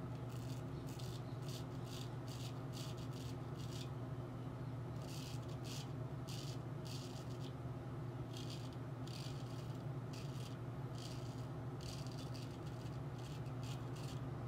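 Straight razor scraping through lathered stubble in quick runs of short strokes, about two to three a second with brief pauses, over a steady low hum.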